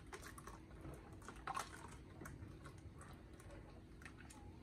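Metal ladle stirring pancake batter in a glass bowl, with faint scattered clicks and taps of the ladle against the glass, the clearest about a second and a half in.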